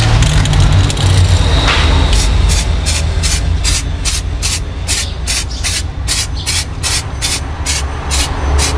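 Aerosol can of Samurai Paint water-transfer activator sprayed in quick short bursts, about three a second, starting about two seconds in, over a steady low rumble. This is the activator being laid heavily onto carbon-pattern transfer film floating on water, to soften the film before dipping.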